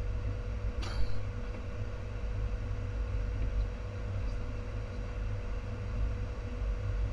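Steady low rumble of engine and airflow noise in the cockpit of a Hawker 700 business jet climbing out, with a faint steady whine and a brief click about a second in.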